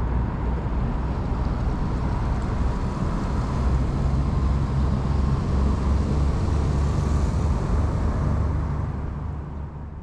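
Inboard engine of a small river tour boat running steadily as the boat passes close below, with a deep engine hum under the noise; the sound fades out near the end.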